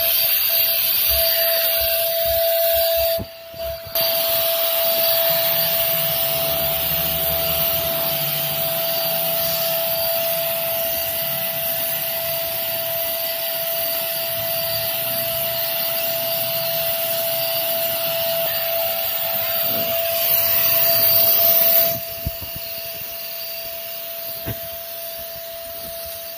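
A hand-held electric paint spray gun running steadily, a motor whine with a hiss as it sprays black paint onto cast-iron weight plates. It cuts out for under a second about three seconds in, and it is quieter near the end.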